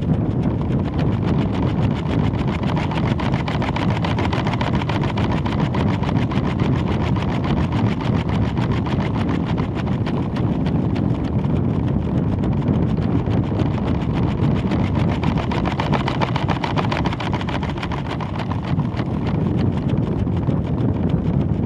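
Steady rough rushing noise with a fast, dense rattle, picked up by a weather balloon's onboard camera during ascent: airflow over the payload and the box shaking.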